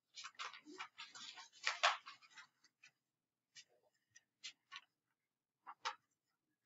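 Pen scratching and tapping as it writes: a quick run of small scratches and ticks for the first two seconds or so, then a few scattered light clicks.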